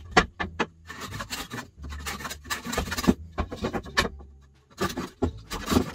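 Small rabbet plane shaving the edge of a pine board in a run of quick rasping strokes, with a few sharp ticks at the start. The board is being trimmed because it fits too tightly.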